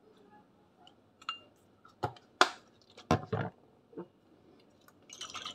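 Kitchen handling sounds: a handful of sharp clicks and knocks as a metal measuring spoon is tipped into a ceramic bowl and a soy sauce bottle is put down on the counter.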